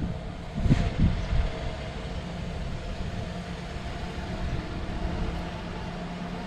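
Car engine running with a steady low hum. Two dull thumps come less than a second in.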